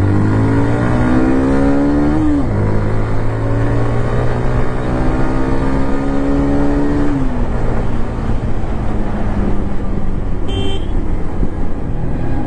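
Yamaha XTreme 125R's single-cylinder engine pulling under acceleration: the note climbs, falls back sharply about two seconds in, climbs again, falls back again about seven seconds in, then holds steady. A short high beep sounds about ten seconds in.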